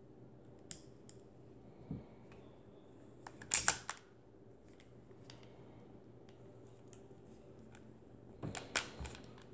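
Metal clicks and rattles of a Ruger LC9s pistol being reassembled by hand, its slide and parts fitted back onto the frame. A few light ticks early on, a quick burst of louder clicks about three and a half seconds in, and another cluster near the end.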